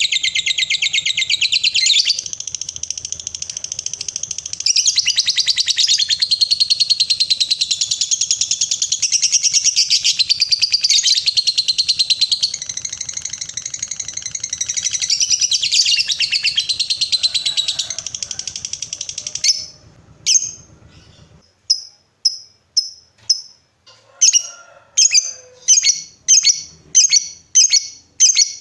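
Lovebird's long chattering trill, the 'ngekek panjang' sought by keepers, running continuously and high-pitched, then breaking about two-thirds of the way in into separate sharp chirps, about one or two a second.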